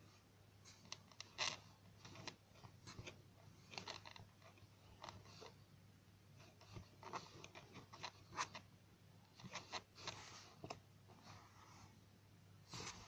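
Faint, scattered crinkles and rustles of squishy toys and their packaging being handled, over a steady low hum.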